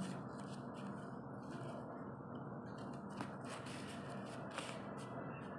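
Plastic gel pens rustling, rubbing and lightly clicking as they are slid into the elastic loops of a fabric pencil case, in short irregular strokes with a couple of faint ticks past halfway, over a steady low background noise.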